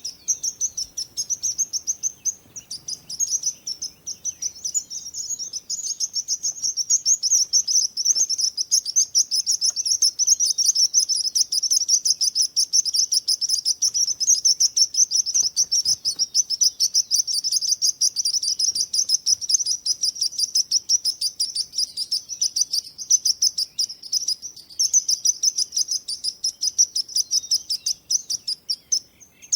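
Birds chirping: a dense, continuous run of rapid high chirps that thins briefly near the end.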